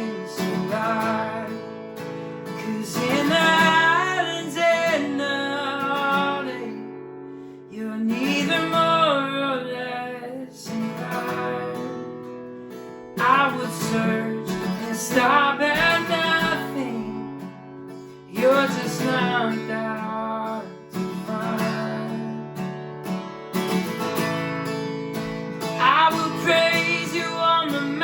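Live worship-band music: a strummed acoustic guitar holding chords, with a vocal line in phrases every few seconds and no clear words.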